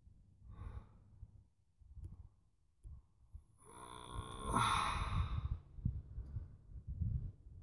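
A man's breathing close to the microphone: a soft breath about half a second in, then a longer, louder sigh about four seconds in, over a low uneven rumble.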